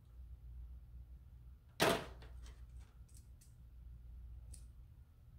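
Kitchen tongs handling boiled pork ribs: one sharp knock about two seconds in, then a few light clicks, over a low steady hum.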